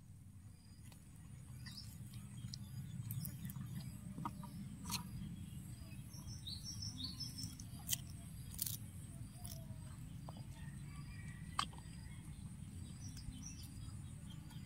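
Cats chewing fish, with a few sharp clicks scattered through, over a low steady hum. Birds chirp in the background, several short chirps around the middle and again near the end.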